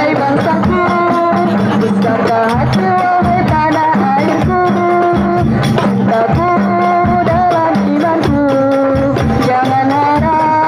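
Sholawat, an Islamic devotional song, sung by a woman's voice through a microphone. It has held, gliding notes and is backed by hand-drum percussion in a steady rhythm.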